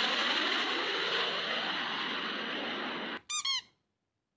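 Aeroplane engine noise, a steady whooshing rush with a slow sweep in pitch as it passes, cutting off suddenly about three seconds in. It is followed at once by a short run of high squeaky-toy squeaks.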